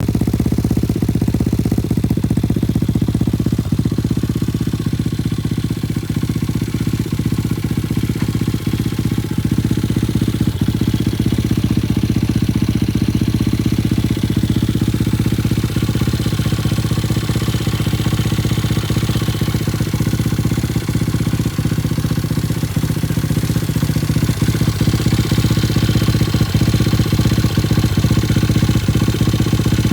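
Small single-cylinder four-stroke engine of a Chinese Honda Monkey clone idling steadily through an Akrapovič-style aftermarket silencer.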